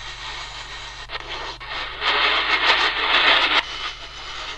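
Static hiss from the speaker of a QFX R-35 pocket AM radio being tuned between stations, louder for about a second and a half midway, with a couple of faint clicks.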